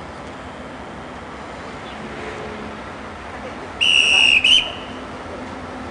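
A loud, high-pitched whistle blast about four seconds in, just under a second long, with a short second note at its end, as a train approaches.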